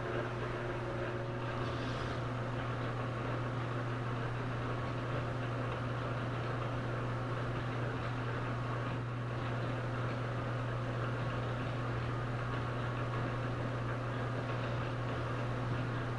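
Metal lathe running steadily with a shaft turning in its chuck: a constant low motor and gear hum.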